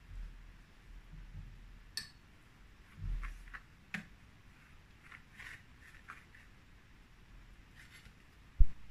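A knife cutting a rolled dough log on a worktop: a few sharp clicks of the blade meeting the surface, soft scraping and handling noise, and a short dull thump near the end.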